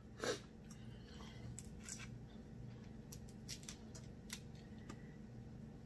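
Faint crackles and clicks of fingers peeling the shell off boiled seafood, with one short soft noise just after the start, over a faint low steady hum.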